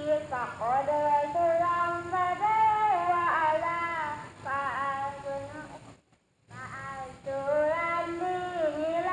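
A song with a high voice singing long, wavering notes that glide between pitches. The song cuts out abruptly for about half a second six seconds in, then resumes.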